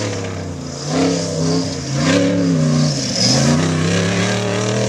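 Off-road race buggy's engine revving up and down several times as it is driven hard through a dirt turn, the pitch climbing and dropping with the throttle.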